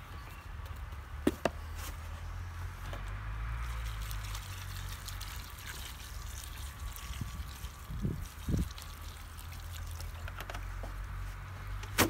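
Water poured from a plastic gallon jug into dry masonry cement in a mixing tub, a faint steady trickle as the mortar is wetted, with a couple of sharp clicks about a second in and a few low knocks near the end, over a steady low rumble.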